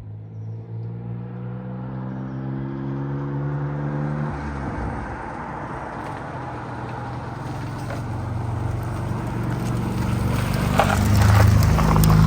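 Car engine running under way, its note climbing slightly for about four seconds. Then it gives way to a broad rush of engine and road noise that grows steadily louder.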